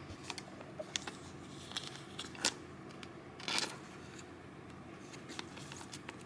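Faint clicks and light rustling of trading cards being handled and set into plastic card stands, with a few sharper ticks about one, two and a half, and three and a half seconds in.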